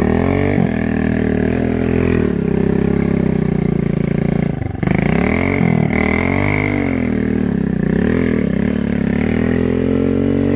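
Off-road vehicle engine running hard, its revs rising and falling several times, with a brief dip in revs a little before halfway.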